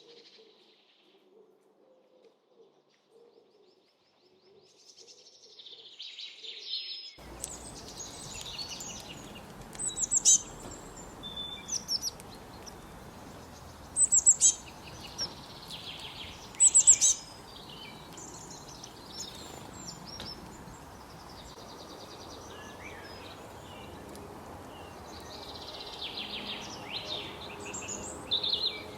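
Small birds chirping and calling, several overlapping, short sharp notes. They are faint at first; about seven seconds in, a steady outdoor background hiss cuts in abruptly and the chirping gets louder, with a few loud bursts of chirps.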